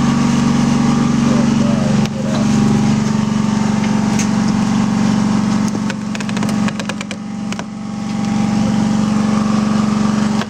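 Bee vacuum running with a steady low hum while its hose nozzle is worked over honeycomb to suck up bees. A quick run of clicks and rattles comes between about six and eight seconds in.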